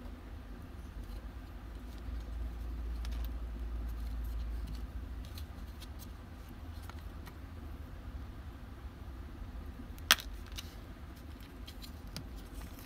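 Scattered light clicks and small metallic clinks, like parts and tools being handled, with one sharp click about ten seconds in, over a low steady rumble.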